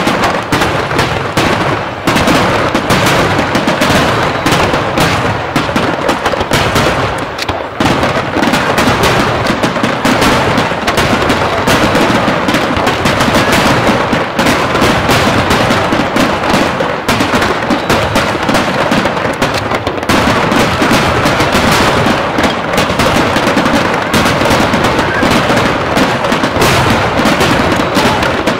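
Fireworks barrage: rapid, overlapping bangs and crackles in a continuous run, with only a brief let-up a few seconds in.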